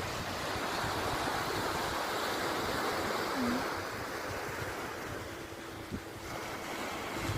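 Sea waves washing in: a steady rush that swells over the first few seconds and eases off later, with wind buffeting the microphone.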